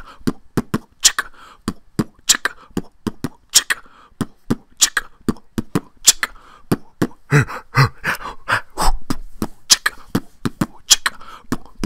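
Beatboxing: a mouth-made drum beat of quick clicks and thumps, several a second.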